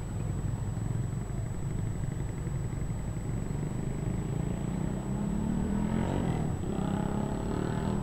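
Steady low rumble of outdoor town traffic, with a motor vehicle engine growing louder from about five seconds in as it passes.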